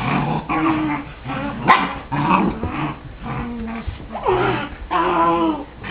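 White Shepherd puppy growling and barking in a run of short calls, with one sharp click about a second and a half in.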